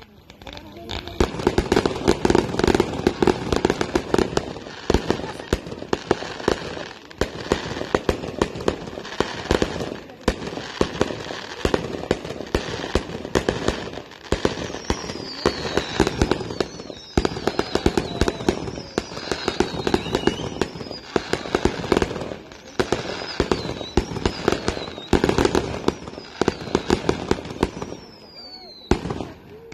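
Fireworks display: a dense, steady run of shell bursts and crackling that begins about a second in. Several whistling fireworks fall in pitch during the second half, and the bangs thin out near the end.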